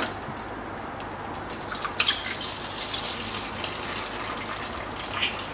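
An egg cracked into a hot non-stick frying pan on a gas stove: a steady frying hiss, with a few sharp clicks from the shell around the middle.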